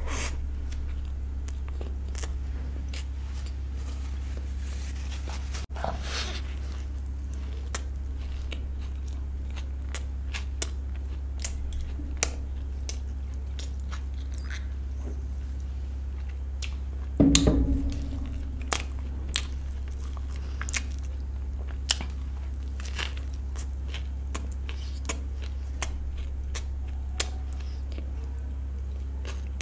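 A person eating, biting and chewing, with many short scattered mouth clicks and a louder crunchy bite a little past halfway. A steady low hum sits underneath.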